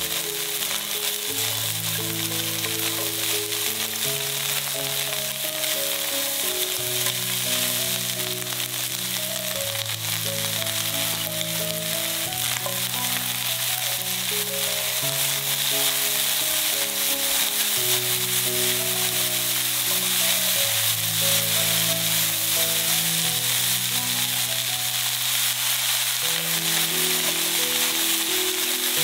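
Shredded cabbage, carrots and scrambled egg sizzling steadily as they are stir-fried in oil and tossed with a spatula, a little louder in the second half. Slow background music plays underneath.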